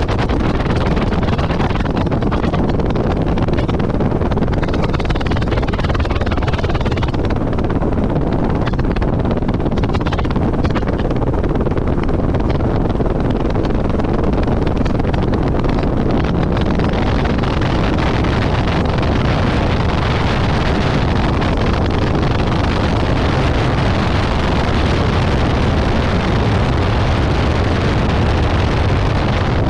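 Beechcraft Bonanza B35's six-cylinder horizontally opposed piston engine and propeller running steadily as the plane taxis, heard close up from the cowling with wind on the microphone. About halfway through the sound grows brighter and fuller.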